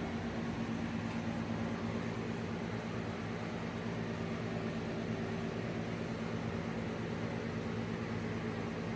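Steady mechanical hum of a running fan or motor, holding a few constant low tones over an even hiss.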